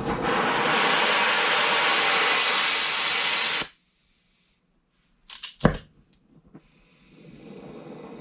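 Air-powered angle grinder running with a loud rushing air hiss, its bearings worn and loose, cutting off abruptly after about three and a half seconds. After a short gap come a few sharp clicks, then a quieter steady hiss begins near the end.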